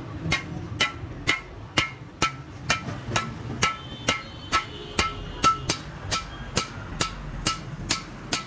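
Hand hammer striking a steel flat bar held against a truck's welded rear axle hub bracket: a steady run of about two ringing metal blows a second, some eighteen in all.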